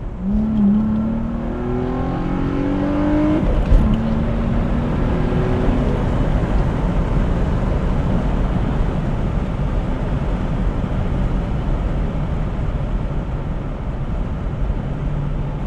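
Sports sedan's engine heard from inside the cabin, pulling hard with its pitch rising for about three seconds. Near four seconds there is a gear change with a click and a drop in pitch. The engine pulls again briefly, then fades under steady road and wind noise as the car cruises.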